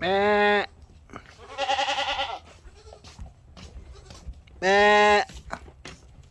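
Goats bleating: three loud calls, the first and last held steady, the middle one quavering.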